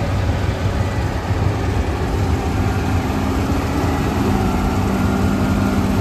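New Holland CR9060 combine harvester running at working speed while cutting wheat, a steady machine drone. A steady pitched hum joins in about halfway through.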